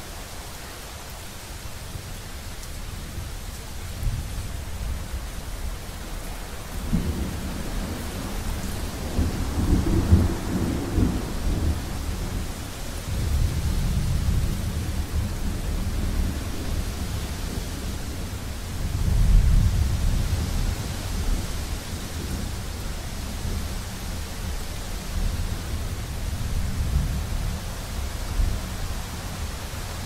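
Thunderstorm: steady rain hiss with rolling thunder that rumbles up in several long waves, the loudest about twenty seconds in.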